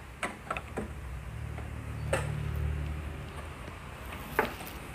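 Screwdriver clicking and scraping against the screws and sheet-metal frame of an opened PA amplifier, a few separate sharp ticks with the loudest near the end, and a low hum during the first three seconds.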